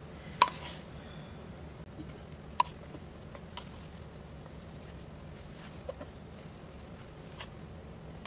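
A few short, faint clicks over a low steady hum, the sharpest about half a second in and another at about two and a half seconds.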